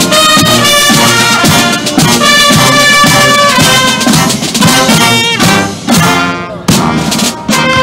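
Marching band playing: trumpets and other brass carry the tune over a steady bass and snare drum beat. About two-thirds through, the brass slides down in pitch and breaks off briefly before the band comes back in.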